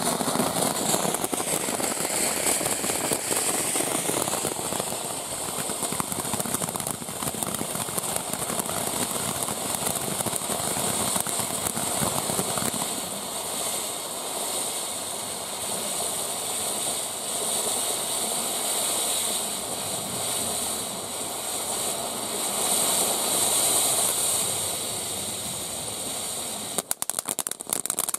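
Ground fountain firework spraying sparks: a steady rushing hiss with crackling throughout, breaking into sharp separate crackles near the end.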